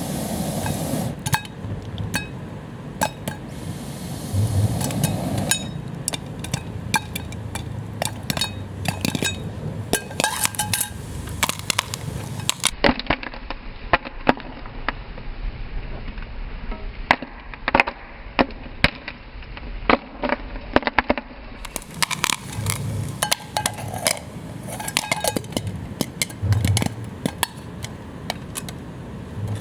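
Popcorn popping in a lidded aluminium cook pot over a wood stove: irregular sharp pops and clinks of kernels against the metal, with a few low thuds from the pot being handled.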